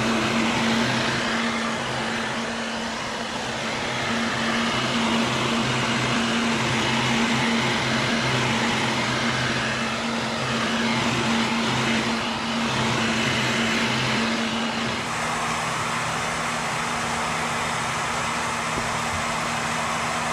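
Electric heat gun running steadily, a continuous blowing hiss over its motor hum, heating the vinyl seat cover so it can be stretched around the seat; the hum changes about fifteen seconds in.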